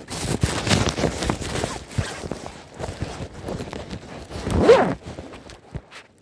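Rustling and clicking handling noise, with a louder squeaky scrape about three-quarters of the way in.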